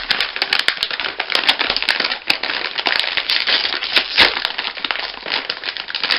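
Packaging crinkling and crackling with many sharp clicks as a biscuit packet is handled and opened.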